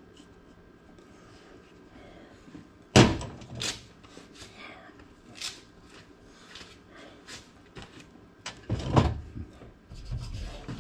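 Knocks and clunks of work inside a metal air handler cabinet during a blower motor swap. A sharp loud clunk about three seconds in, a few lighter knocks, then another heavy knock around nine seconds.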